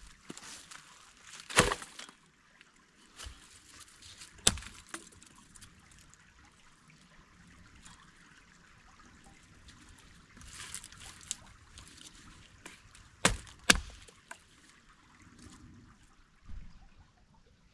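Water trickling, with a handful of sharp knocks and clatters, the loudest two in quick succession near the end.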